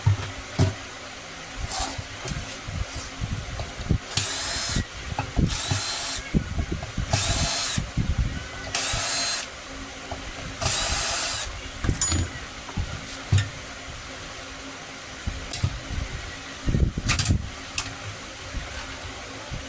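A small handheld power tool's motor run in five short bursts of under a second each, its whine rising and falling with each trigger pull, among scattered knocks of parts being handled.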